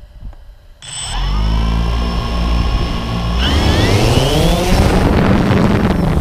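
DJI Phantom 2 quadcopter's four electric motors and propellers starting up about a second in with a rising whine, then spinning up higher about three seconds in as it lifts off. Heard from the camera on the drone itself, so the motors are close and loud.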